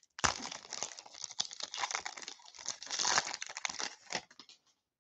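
Foil wrapper of a baseball card pack crinkling and tearing as it is ripped open and pulled off the cards, stopping about four and a half seconds in.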